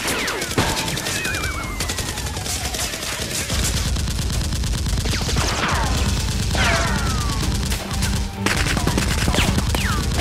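Rapid bursts of dubbed-in firearm gunfire sound effects with several falling whistles, over background music with a steady low beat.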